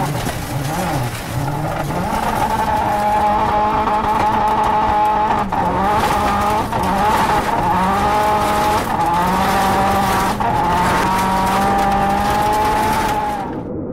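Dodge Dart rally car's engine held at high revs, its pitch wavering up and down as the throttle is worked, with tyres sliding on loose dirt. The engine note dips briefly twice, about five and ten seconds in.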